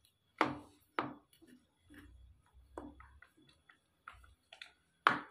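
A metal spatula clacking and scraping against a wok while stirring chicken in a thick sauce: a run of sharp knocks, the loudest about half a second in, at one second and near the end, with lighter taps between.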